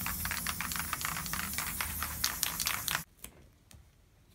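Aerosol spray paint can spraying, a steady hiss with a rapid, irregular crackle of clicks, cutting off suddenly about three seconds in.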